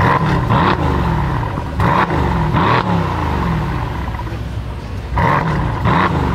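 A Brabus-tuned Mercedes engine being revved in short, sharp blips. The revs come in quick pairs, three pairs in all, each rising and falling straight back.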